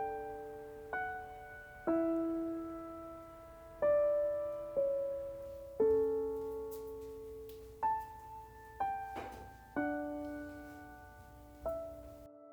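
Slow, gentle solo piano background music, a note or soft chord struck about once a second and left to ring out.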